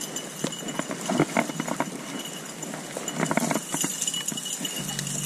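Footsteps crunching through dry brush and grass: an uneven run of crackles and twig snaps.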